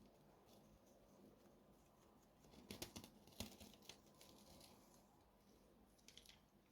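Near silence, with a few faint clicks and rustles from small objects being handled, clustered about three seconds in and again near the end.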